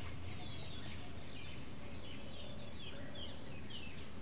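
Small birds chirping and twittering in quick short calls, many overlapping, over a steady low background hum.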